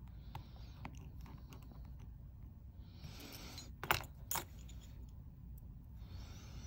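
Small metal repair tools clinking and tapping on the work surface during phone reassembly. There are a few light ticks, then two sharp metallic clicks about four seconds in, with a brief soft hiss before them and another near the end.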